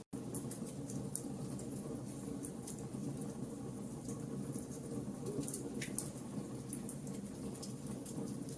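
Wood fire burning in a fireplace: irregular small crackles and pops over a steady low rumble of the flames. The sound drops out for an instant right at the start.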